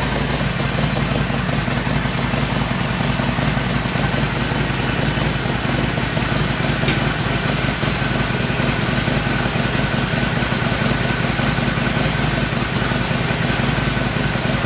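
Motorcycle engine idling steadily, with an even, fast pulse.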